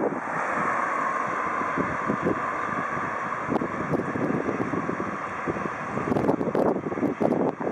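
Boeing 777-300ER's twin GE90 turbofans running at taxi power, a steady jet hum, with wind buffeting the microphone.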